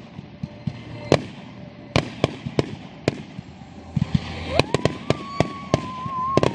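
Aerial fireworks bursting in quick succession with many sharp bangs and crackles. About four and a half seconds in, a long whistle rises and then holds.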